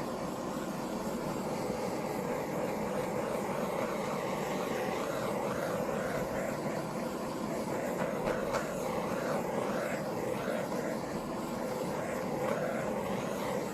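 Handheld butane torch running steadily, its flame giving a continuous rushing hiss as it is played over wet pour paint.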